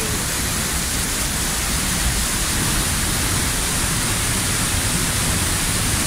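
Palovit waterfall's falling water rushing steadily, heard close up in its spray.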